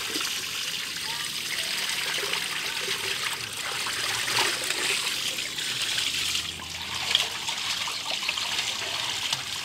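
Drain water from a catfish pond running and trickling steadily along a concrete drain channel as the pond is emptied.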